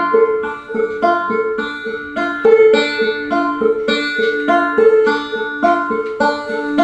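Banjo picking an instrumental passage: a steady run of plucked notes that ring and fade, with no singing.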